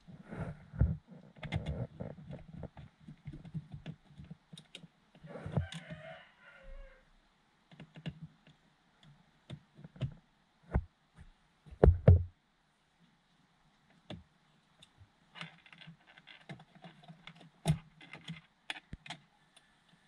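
Scattered clicks and knocks of hard plastic and small parts being handled by hand: a Proton Saga BLM's dashboard trim and screws around the hazard light switch being refitted. The loudest cluster of knocks comes about twelve seconds in.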